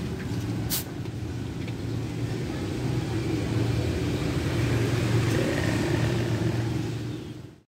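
Steady rumble of road traffic, with one sharp click about a second in; it fades out near the end.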